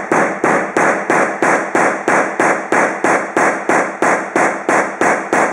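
A hammer striking an HDMI cable over and over in the same spot to crush it, about three quick blows a second, stopping at the very end.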